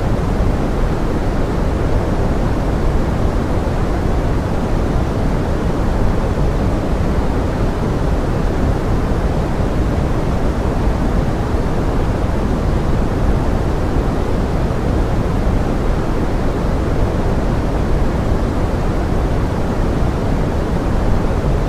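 Pink noise blended with forest rain: a steady, even rush of noise, heaviest in the low and middle range and fading toward the top, with no separate drops or other events standing out.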